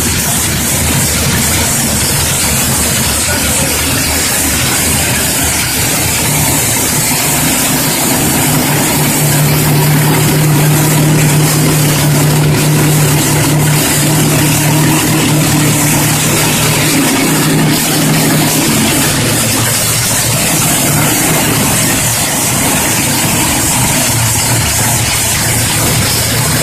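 Carbureted V8 race engine of a NASCAR Truck Series race truck running at idle on the stand, a loud steady rumble that grows louder and steadier for several seconds in the middle.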